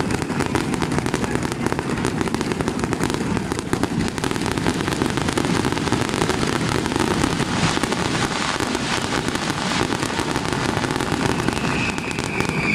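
Aerial fireworks display going off continuously: a dense crackle of many small pops over a low, steady rumble of bursts.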